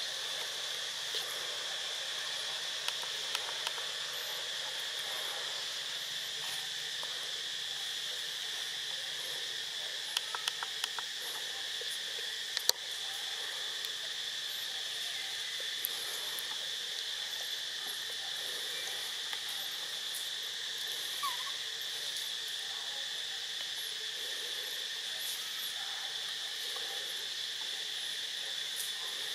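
Steady, high-pitched insect chorus, with a few short sharp clicks, the loudest about thirteen seconds in.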